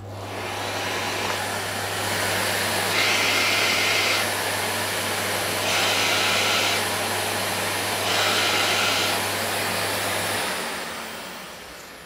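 Philips PowerPro Compact 1900 W bagless canister vacuum running at full suction. It grows louder for about a second three times as the air-bleed vent on the hose handle is closed and opened again; with the vent open, some air escapes and the sound drops. A little after ten seconds in the motor is switched off and winds down.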